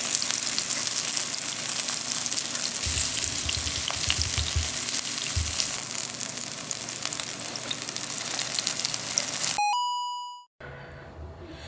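Kimchi pancake batter sizzling and crackling as it fries in hot oil in a nonstick pan, with a few low bumps around the middle. Near the end the sizzle fades out, a short chime sounds, and faint music follows.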